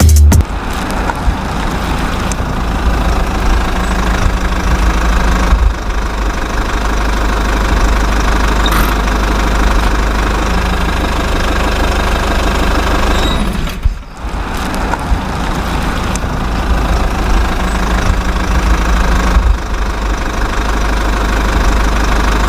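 RC construction vehicle's engine, a steady knocking diesel-style idle, dipping briefly about two-thirds of the way through.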